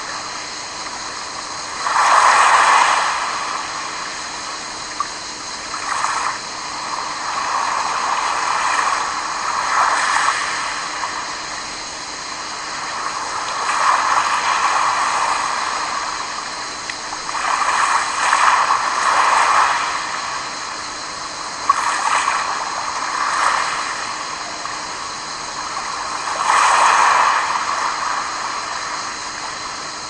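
Small sea waves lapping and washing onto a pebble beach, each wash swelling and fading every few seconds.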